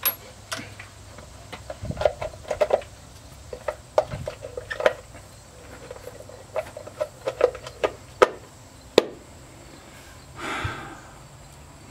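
Wheel center cap being handled and fitted onto the hub of an alloy wheel: a run of light clicks and taps, with two sharper knocks near the end.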